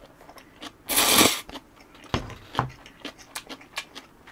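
A person slurping Nongshim Neoguri ramen noodles: one loud slurp about a second in, then chewing with a run of small clicks.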